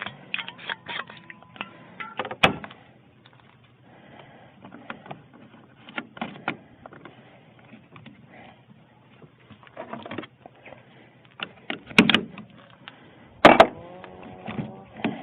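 Irregular clicks, taps and knocks of hands working with small parts, with a short mechanical whirring near the end.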